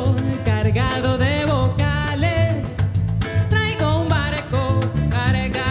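Live Latin-style song: a woman singing over acoustic guitar, bass and hand percussion keeping a steady beat.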